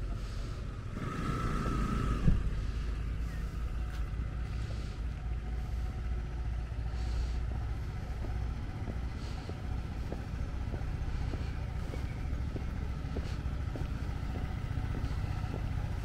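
Outdoor street ambience: a steady low rumble, with a brief louder sound carrying a thin whine about a second in and faint scattered ticks.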